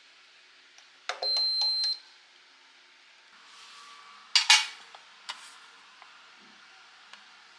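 A countertop oven gives a click and a single high electronic beep lasting under a second as its knob stops it mid-bake. A few seconds later a metal baking tray holding foil cake cups is set down on the counter with a sharp clatter, followed by a few light clinks.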